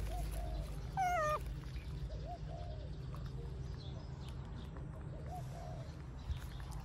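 Baby macaque giving several soft, short squeaks, with one louder, falling squeal about a second in.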